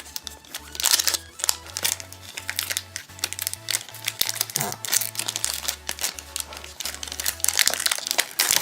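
Plastic wrapper of a hockey card pack crinkling and crackling as it is worked and torn open, over background music with a steady bass line.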